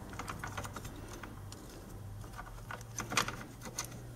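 Light clicks and small taps as a red dot sight and its riser mount are handled and loosened with an Allen wrench on an AR-15's rail. The clicks are a little louder about three seconds in.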